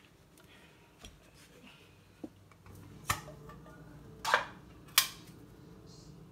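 A can of cream of mushroom soup being emptied into a metal cooking pot: three sharp metal knocks, the first about three seconds in and the last two close together near the end, after a few faint clicks.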